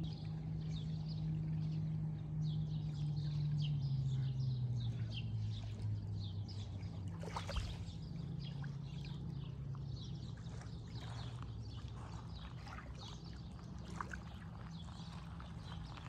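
Small birds chirp busily over the low drone of a motor engine, which drops in pitch and fades over the first half, with a single sharp knock about halfway through.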